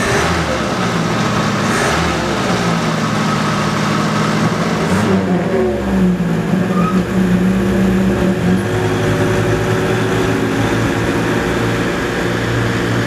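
Four-cylinder Chevrolet Chevette engine in a 1928 Willys Whippet running. About five seconds in its pitch rises and holds for a few seconds, then settles back down.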